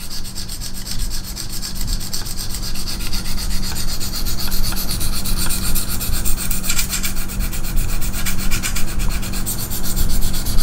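A 600-grit diamond hone of a KME guided knife sharpener rasping along a clamped knife's edge in rapid up-and-down strokes, a continuous scratching. This is the 600-grit pass of the sharpening.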